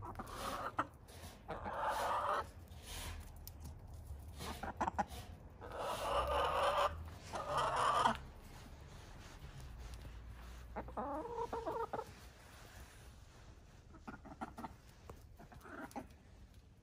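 Hens clucking in a series of separate calls, some short and some drawn out, the longest and loudest lasting about two seconds around six to eight seconds in.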